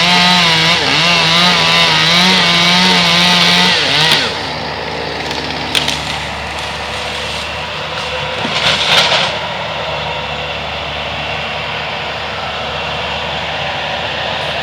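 Chainsaw running under load as it cuts, its pitch wavering, then dropping back to a lower, steadier idle about four seconds in. Two short bursts of noise follow over the idle, the second and louder one about nine seconds in.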